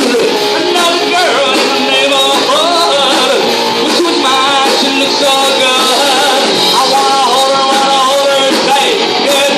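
Live rock band playing a song loudly and without a break: electric guitar and a singing voice over the band.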